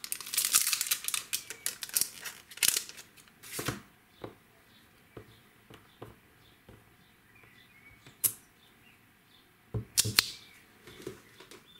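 Crinkling and crackling of the clear plastic carrier sheet of a stamp set as a clear stamp is peeled off it, followed by scattered clicks and a cluster of sharp taps about ten seconds in as the stamp is pressed onto a clear acrylic block.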